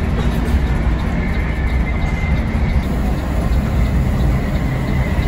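Intercity bus running at speed, heard from inside the cabin: a steady engine drone and road noise with a heavy low rumble.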